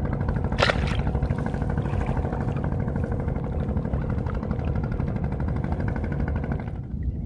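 An engine running steadily at an even speed, with one sharp click a little under a second in. Its higher-pitched part cuts off suddenly near the end.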